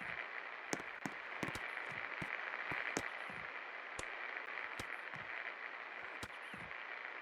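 56-inch Pak Floral ceiling fan running: a steady airy hiss with frequent irregular sharp clicks.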